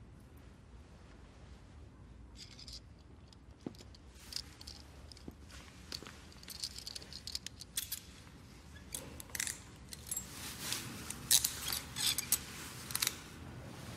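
Metal handcuffs clicking and jangling as they are handled and closed around wrists. A scatter of sharp metallic clicks grows louder and thicker toward the end.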